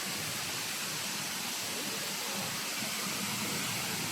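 Waterfall water falling and splashing as a steady, unbroken rush.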